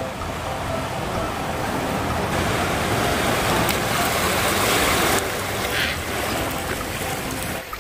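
Sea water washing over a rocky shore: a steady hiss of surf that swells louder for about three seconds in the middle, then eases.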